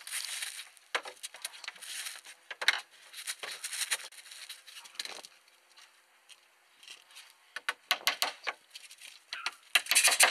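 Roofing felt rustling and scraping as the roll is pushed out over the roof boards, followed by quick clusters of sharp hammer strikes as the felt is nailed down.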